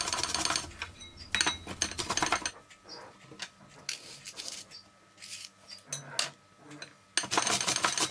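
Apples being grated with their skins on against a stainless steel hand grater in a glass bowl: quick, repeated rasping strokes. They ease off and turn sparse in the middle, then pick up strongly again near the end.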